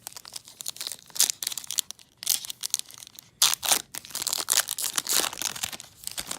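Foil wrapper of a Topps Chrome trading card pack being torn open and crinkled by hand, in a run of irregular crackles and rustles.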